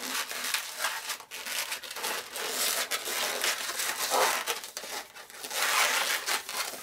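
Inflated latex twisting balloons, a white 160 and a blue 260, rubbing against each other and against the hands as an ear twist is worked into the bracelet base: a dense, uneven rustle of latex handling.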